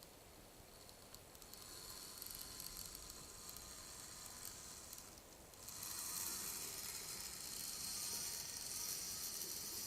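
Tiny electric motor and gears of a Digi-Q Train toy train running with a faint, high hiss that grows louder in two steps, about a second and a half in and again near six seconds, as the train speeds up.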